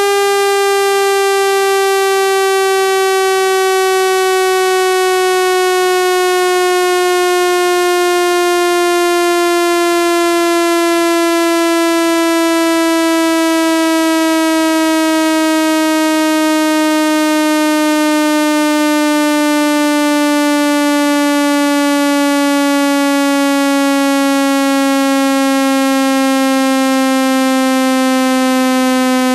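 Speaker water-eject tone: a loud, buzzy synthesized tone with many overtones, its pitch falling slowly and steadily, played to vibrate trapped water out of a speaker.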